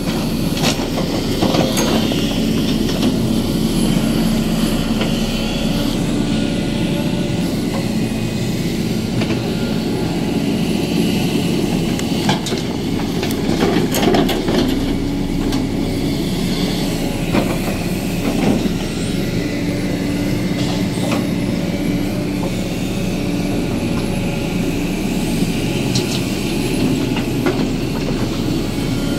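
Hydraulic excavator working, its diesel engine running steadily under load. Occasional sharp knocks and clanks sound over the engine.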